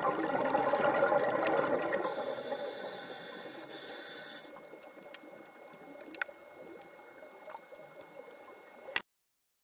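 Scuba diver's exhaled bubbles rushing and gurgling past the underwater camera, fading over about four seconds. After that comes a faint underwater crackle with scattered sharp clicks, and the sound cuts off abruptly near the end.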